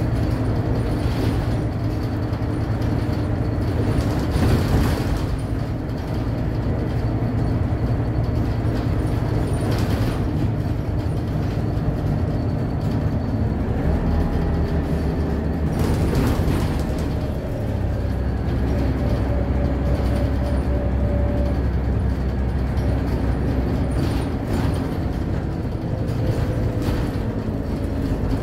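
Interior of a city bus on the move: engine and drivetrain running steadily under a low hum, with occasional rattles and knocks from the body. About halfway through the engine note changes and a whine slides in pitch.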